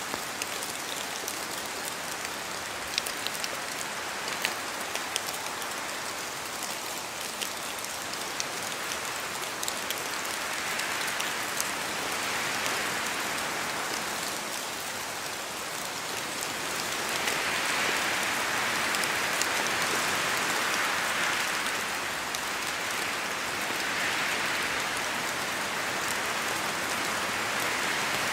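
Steady rain falling in a spruce forest, with single drops ticking sharply in the first half. Wind gusts swell through the trees several times in the second half.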